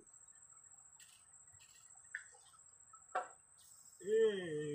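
A faint, steady high-pitched whine with a few scattered clicks and a sharp snap about three seconds in; near the end a person's voice breaks in with a loud, drawn-out, wavering call.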